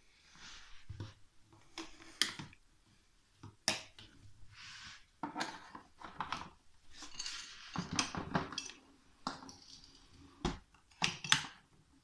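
Irregular hard plastic clicks and knocks, with rustling between them, as the plastic hose cuff is handled and pushed into the inlet of a Toshiba VC-222 canister vacuum cleaner. The motor is off.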